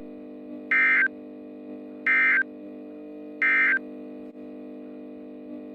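EAS SAME end-of-message data tone: three short, identical bursts of the warbling digital signal, about a second apart, closing the alert. A steady low drone runs underneath.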